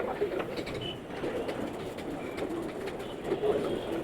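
Birds calling in the background: low wavering cooing, with a few short high chirps.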